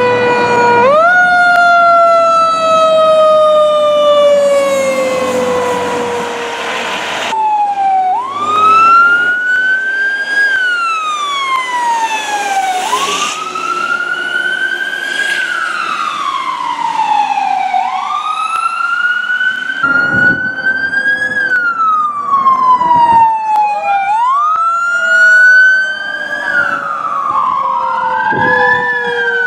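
Fire truck siren wailing. It rises quickly about a second in and falls slowly for several seconds, then sweeps up and down about every five seconds, with a lower siren tone sliding slowly down underneath.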